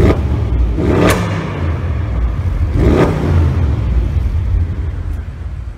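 Audi RS6 Performance twin-turbo V8 with sport exhaust, stationary and running with a deep low rumble, cut by short sharp exhaust bursts at the start, about a second in and again about two seconds later. It echoes off the concrete walls of a parking garage.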